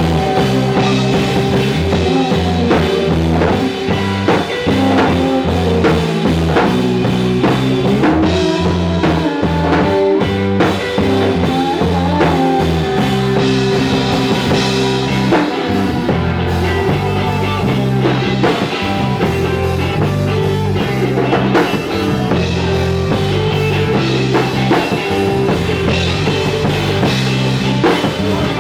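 Rock band playing live: a drum kit keeping a steady beat under guitars and bass guitar.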